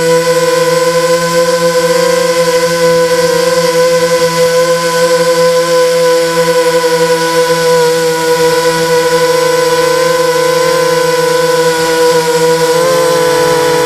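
Brushless motors and propellers of a 250-size FPV racing quadcopter whining at a steady pitch in flight, shifting slightly in pitch near the end as the throttle changes.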